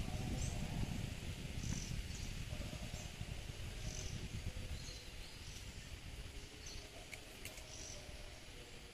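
Outdoor forest ambience: a short high chirp repeats about once a second over a low rumble that is strongest in the first couple of seconds and fades away.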